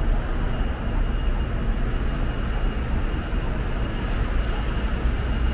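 Steady city street traffic noise, a constant low engine rumble, with a faint steady high tone underneath.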